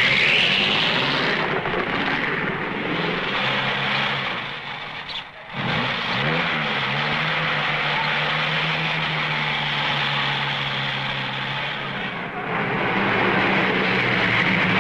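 Engine of a 1950s single-seat Grand Prix racing car running at low revs as it moves off. It drops out briefly about five seconds in, wavers up and down in pitch for a moment, then settles into a steady note.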